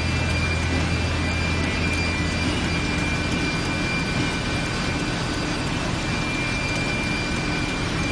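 Small toilet roll paper making production line running non-stop: a steady machine drone with a low hum and a faint high whine.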